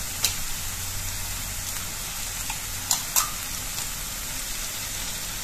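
Onion and tomato mixture sizzling steadily in a frying pan on a low flame, with a few short sharp taps about a quarter second in and twice around three seconds in, as an egg is cracked into the pan.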